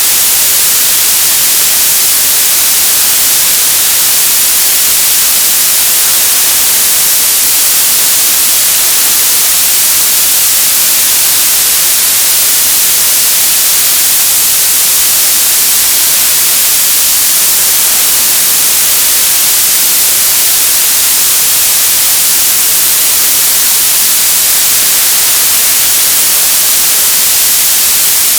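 Television static: a loud, steady hiss of white noise, brightest in the high frequencies, with no change throughout.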